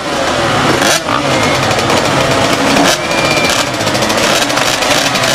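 A pack of motocross bikes revving together, many engine notes rising and falling over one another.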